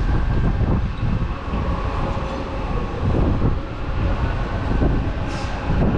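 Wind buffeting the camera's microphone: a loud, gusty low rumble that swells and dips.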